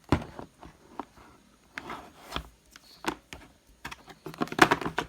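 Handling noise from a rotary hammer drill being picked up and turned over: scattered sharp clicks and knocks, with a quick cluster of rattling knocks near the end. The drill is not running.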